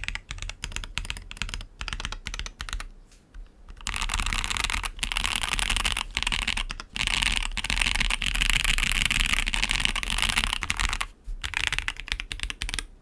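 Mechanical keyboard typing on a Matrix Vita with TTC Wild 42g switches, GMK keycaps and an aluminium plate. Separate keystrokes at first, then fast, continuous typing from about four seconds in with a few brief pauses, stopping just before the end.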